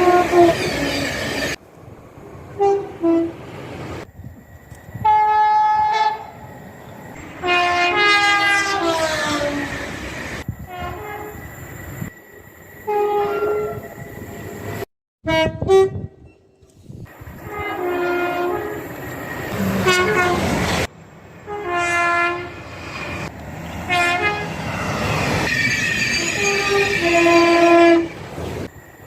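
A run of short clips of British trains sounding their horns: repeated horn blasts at different pitches, some falling in pitch as the train passes, with the noise of trains running on the track between them. The clips cut abruptly from one to the next.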